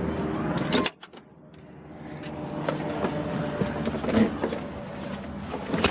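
A latch click about a second in, then rustling and small clicks and knocks as someone gets into a pickup truck's cab.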